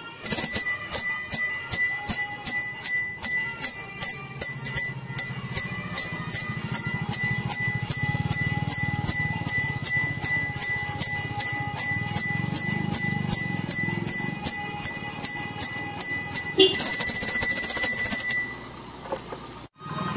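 A brass pooja hand bell rung steadily during aarti, about three clapper strikes a second, with its ringing tone held between strokes. The ringing stops a few seconds before the end, and a noisier stretch follows.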